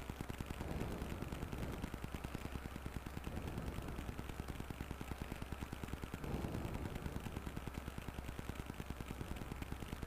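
Rapid, even ticking, about eight ticks a second, over a steady low hum, with soft rustling of handling about half a second in and again after six seconds.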